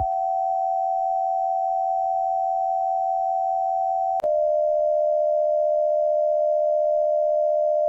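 Mock Emergency Alert System alarm tone: a loud, steady electronic tone that steps to a slightly lower pitch with a click about four seconds in, then cuts off.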